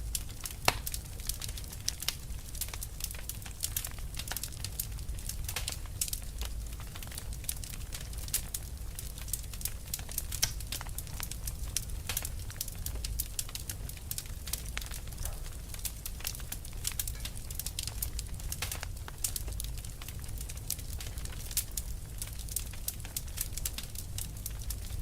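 Fire burning and crackling: dense, irregular pops and snaps over a steady low rumble of the flames.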